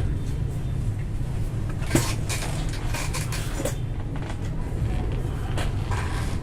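Small plastic parts being handled: a sharp knock about two seconds in, then a scatter of light clicks, over a steady low rumble.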